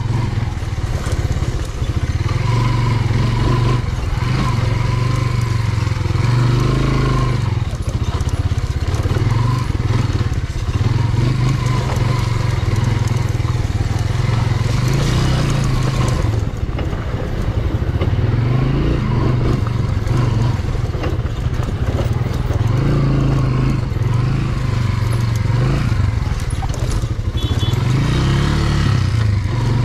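Motorcycle engine running continuously under way, its pitch rising and falling as the throttle opens and closes.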